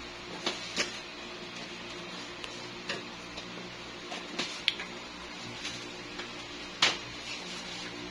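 Bubble wrap and plastic packaging crinkling and clicking as a wrapped parcel is handled and shifted on a table. Several sharp, scattered clicks, the loudest late on, sit over a low steady hum.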